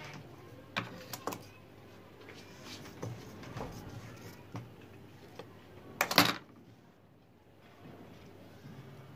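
Stiff non-woven mask fabric being handled and smoothed by hand on a sewing-machine table: rustling with a few light clicks, and a louder crisp crinkle about six seconds in.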